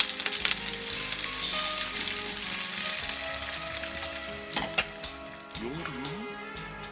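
Sausage pieces and chopped green vegetables sizzling steadily in a hot frying pan, with a few sharp clicks about two-thirds of the way through.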